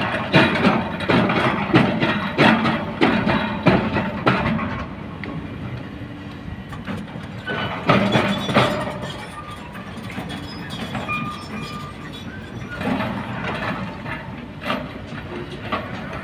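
Kobelco excavator's bucket digging and scooping river rock and gravel, stones clattering and knocking in quick runs for the first few seconds, again about eight seconds in and around thirteen to fifteen seconds, over the machine's steady low engine rumble.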